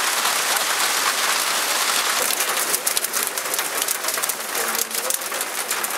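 Hail falling: a dense steady hiss of hailstones pelting grass and foliage. From about two and a half seconds in until near the end, sharper individual ticks and patters of stones striking stand out over the hiss.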